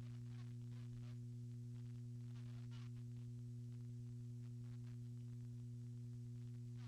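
Steady electrical hum on a surveillance recording, a low drone with overtones, with faint scattered clicks above it.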